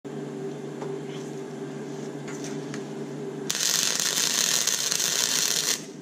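Wire-feed welder humming steadily with a few light clicks, then about three and a half seconds in the arc strikes and crackles with a loud hiss for a little over two seconds before cutting off sharply.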